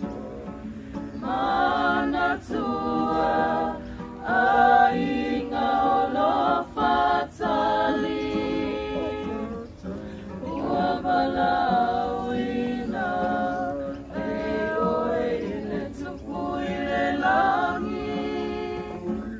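A group of voices singing a song together in Samoan, in phrases of a few seconds with short pauses between them.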